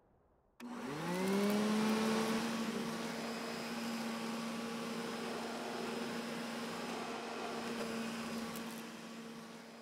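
A whirring hum starts suddenly, glides up in pitch over about a second, then holds steady over a hiss, fading near the end.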